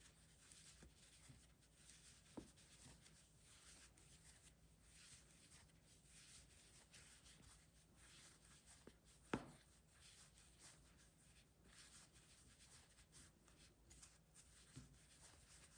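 Near silence, with faint, frequent soft scratching of a crochet hook drawing velvet yarn through single crochet stitches. There is a light click a little over two seconds in and a sharper one about nine seconds in.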